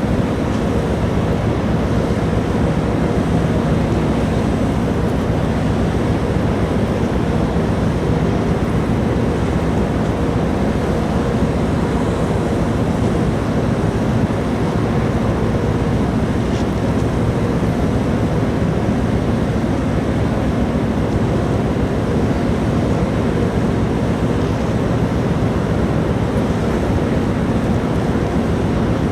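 Steady low rumble and hum of the Orange 7 ferry's engines and machinery, with wind buffeting the microphone.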